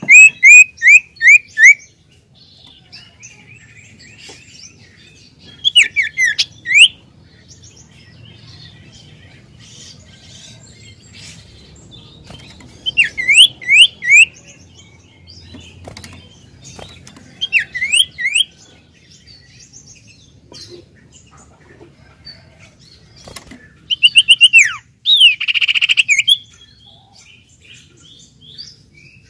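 Common iora (sirtu) singing in short phrases of quick, repeated chirped notes. There are five phrases, each about a second or two long, separated by pauses of several seconds.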